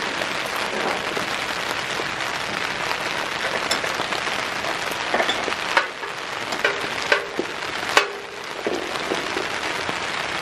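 A steady hiss like rain, with a handful of sharp metallic clinks about halfway through and again around eight seconds in. The clinks come as a hydraulic hose and its fittings are worked against the steel V-plow frame.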